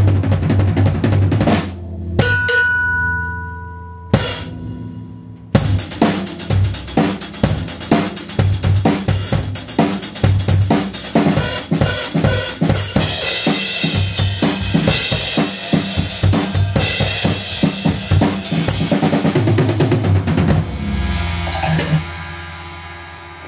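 A miked-up Pork Pie drum kit being played: a few hits and a short pause, then a steady run of bass drum, snare and cymbal hits for about fifteen seconds. The playing stops near the end and the cymbals ring out and fade.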